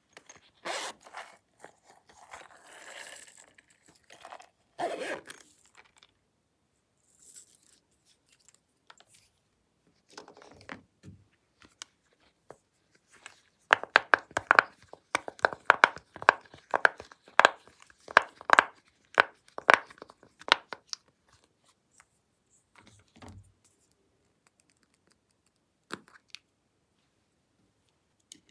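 Silicone pop-it fidget toy with its bubbles being pressed, a quick run of sharp pops, about two or three a second, for some seven seconds in the middle. Before it come scattered rustling and squeezing sounds from handling a silicone toy purse.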